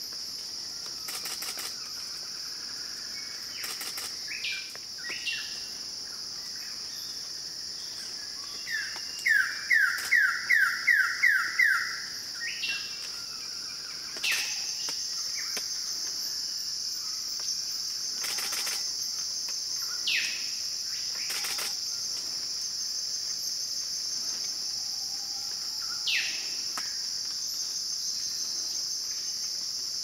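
Steady high-pitched insect chorus from the forest, with bird calls over it: a quick run of about eight loud rising notes partway through, and a few single downward-sliding calls scattered before and after.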